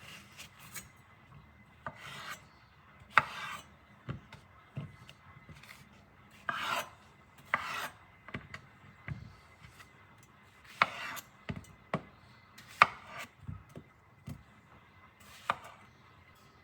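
A freshly sharpened nakiri knife cutting in a string of short slicing strokes, each with a quick scrape and a sharp knock of the blade against a board, irregularly spaced.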